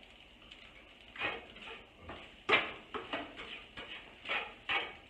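Spatula scraping and turning scrambled eggs in a frying pan: a run of short, irregular scrapes starting about a second in, the loudest about two and a half seconds in.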